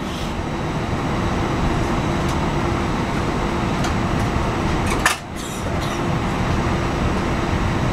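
Airbus A319 jet engine heard from the cabin beside the wing as the jet taxis: a steady noise with a faint low hum. There is a short knock about five seconds in.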